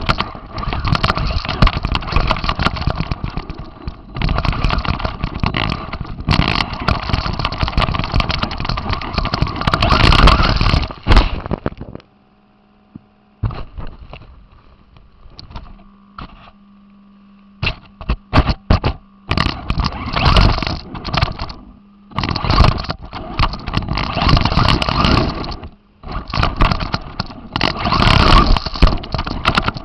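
RC car driving over rough ground, heard through its onboard camera: loud rattling motor and drivetrain noise in bursts. Around the middle there is a pause of about five seconds where only a faint steady hum remains, then the noise comes back in shorter stop-start bursts.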